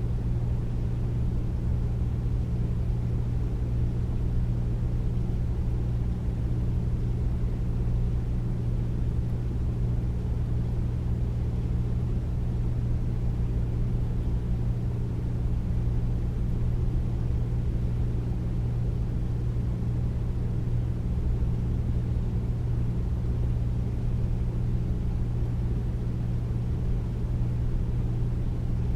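Air conditioner running steadily: a deep, even hum with a low rumbling whoosh of air, unchanging throughout.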